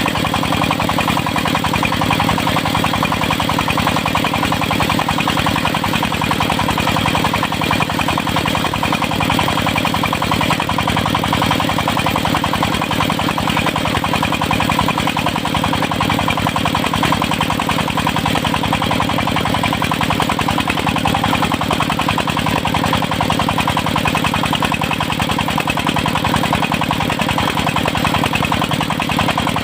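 Diesel engine of a circular-saw sawmill running steadily at an even speed, with a fast, even chugging.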